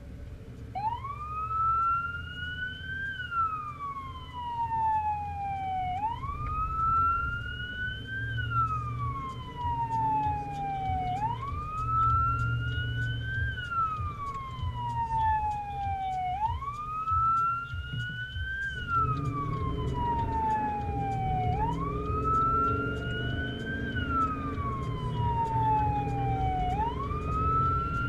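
Emergency vehicle siren sounding a slow wail, its pitch rising and then falling again about every five seconds, heard from inside the cab over the steady road noise of the moving vehicle. The wail starts about a second in.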